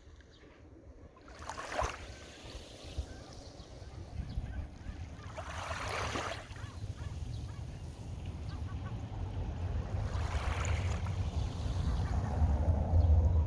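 Small waves of a calm sea washing in gently about every four seconds. Under them is a low rumble that grows steadily louder.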